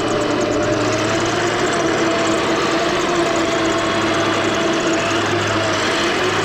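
Toy RC M1A2 Abrams tank running: a steady mechanical whine whose pitch wavers slightly, over a steady low hum.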